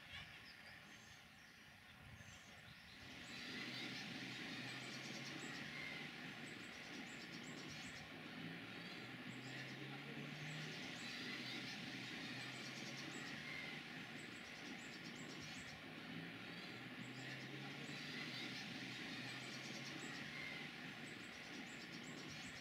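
Faint outdoor ambience: a steady hiss with many short, scattered bird-like chirps and a low steady hum.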